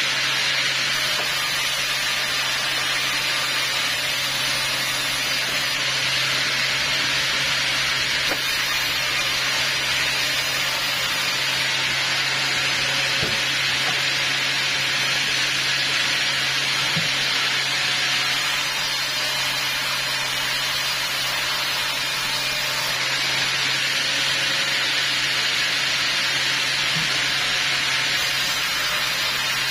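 Large vertical band sawmill running as teak logs are pushed through the blade: a continuous hissing cutting noise over a steady motor hum, even in loudness throughout.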